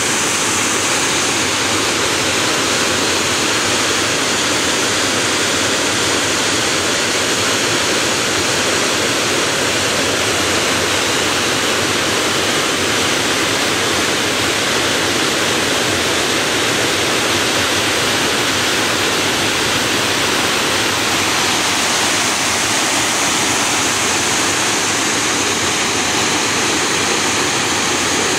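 Water pouring over a low concrete dam spillway: a loud, steady, even rush.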